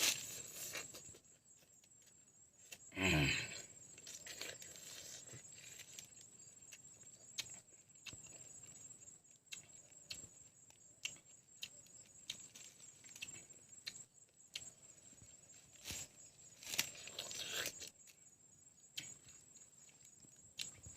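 Someone eating a lemon: scattered mouth clicks and smacks, with a short sound falling in pitch about three seconds in and a louder stretch of mouth noise near the end. A faint steady high whine runs underneath.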